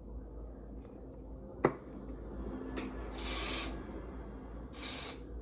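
Two short hissing sprays from a spray bottle, about a second and a half apart, after a single sharp click.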